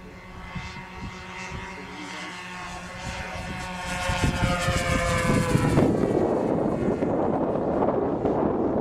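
The twin OS 46 two-stroke nitro engines of a radio-controlled model plane are running in flight, with a steady buzzing tone that slowly falls in pitch. About six seconds in, a loud rushing noise takes over.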